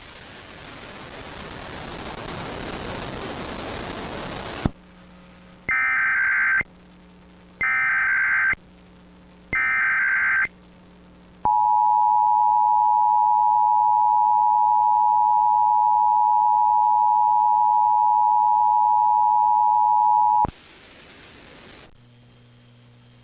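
A hiss of noise that swells over about five seconds, then the three short data bursts of an Emergency Alert System SAME header, each about a second long. Then the EAS two-tone attention signal, two steady tones sounding together at about 853 and 960 Hz, held for about nine seconds and cutting off abruptly.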